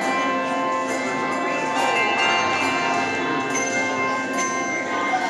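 Handbell choir playing: many handbells struck one after another, their clear tones ringing on and overlapping.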